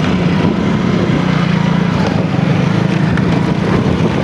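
Small motorcycle engine running at a steady, even speed while being ridden.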